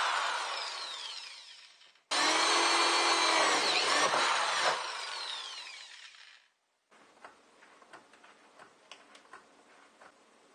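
Power drill running in two long bursts, the first fading out over the first couple of seconds, the second starting suddenly and dying away about six seconds in. Faint scattered clicks of handling follow.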